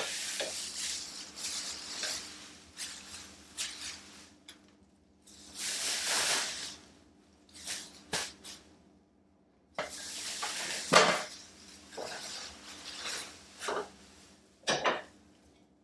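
Shredded paper packing rustling and crinkling as handfuls are scooped and lifted out of a cardboard box, in irregular bursts with short pauses, and a few sharp clacks.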